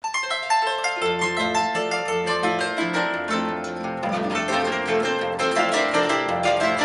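Two Paraguayan harps playing a duet: quick plucked treble runs, with bass notes coming in about a second in.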